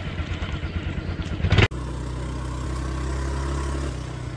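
Motor scooter engine revving unevenly as it labours up a dirt track, with a loud rush about one and a half seconds in. The sound then cuts sharply to the scooter's engine running steadily while it is ridden, heard from the back seat.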